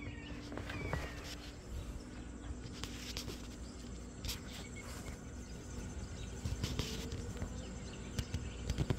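A bird gives a short, falling call about a second in, amid faint outdoor ambience with insects. After that come scattered sharp clicks and knocks.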